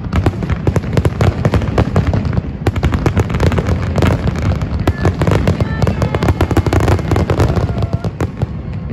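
Large fireworks display at full barrage: a rapid, nearly continuous run of bangs and crackles from many shells bursting at once, over a steady low rumble. It thins slightly near the end.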